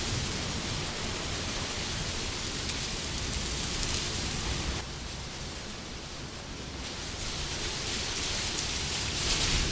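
Wind blowing in a steady rushing hiss that eases off a little about halfway through and builds again near the end.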